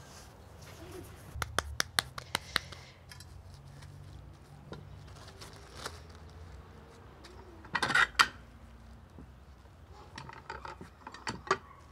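Tortilla-making sounds: a tortilla press clicks and knocks as masa is pressed, and its plastic lining scratches and rustles as it is opened and handled. There is a run of quick sharp clicks early, a louder knock about eight seconds in, and more clicks near the end.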